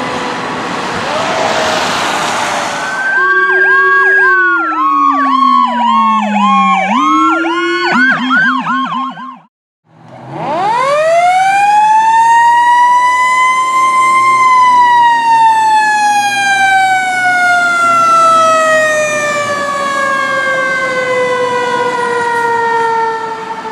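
Fire engine siren over road noise for the first few seconds. Then clean electronic siren tones cycle through fast warbles and sweeps until about nine seconds in. After a short break, a siren winds up over about four seconds and slowly falls away for about nine seconds before cutting off near the end.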